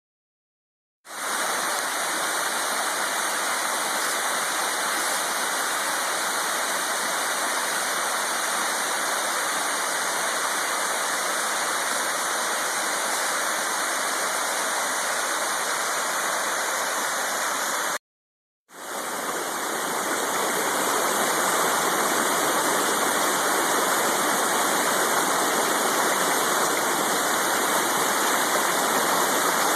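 Waterfall rushing steadily. It cuts out just after the middle, then fades back in as another waterfall, Sylvia Creek Falls, a little louder.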